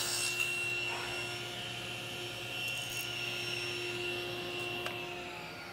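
Table saw running, its blade spinning with a steady whine. Near the end the pitch starts to fall as the saw winds down.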